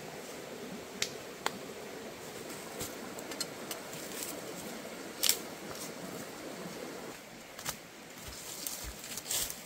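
Steady rush of a nearby stream, with a few sharp clicks and knocks, the loudest about five seconds in, and leaves rustling underfoot near the end.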